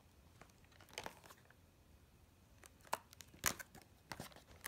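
A cardboard toy box with a clear plastic window being handled and turned over in the hands: short crinkling and scraping noises, one cluster about a second in and a busier run in the last two seconds.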